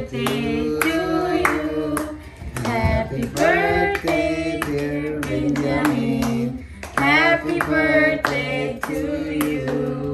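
Several voices singing a birthday song together, with hand clapping.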